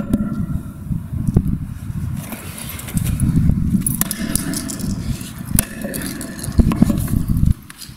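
Sledgehammer blows on a concrete slab around a pair of eyeglasses, several sharp strikes a second or two apart. Under them runs a steady low rumble that cuts off near the end.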